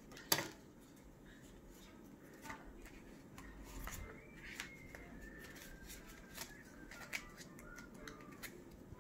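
Pokémon trading cards being handled and sorted by hand: a sharp tap about a third of a second in, then scattered light clicks and soft card rustling.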